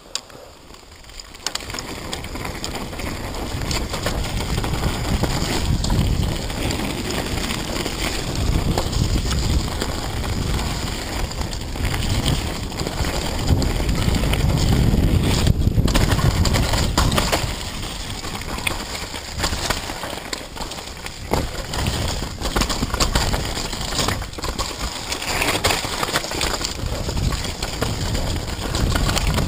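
Wind buffeting the microphone of a mountain bike's action camera, with tyre noise on a dirt trail and the bike rattling and knocking over bumps on a downhill run. It builds up over the first couple of seconds as the bike gets going.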